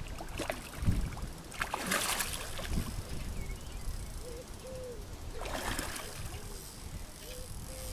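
A hooked carp thrashing at the surface close to the bank, with two splashes, one about two seconds in and one near six seconds. A low thump about a second in is the loudest sound.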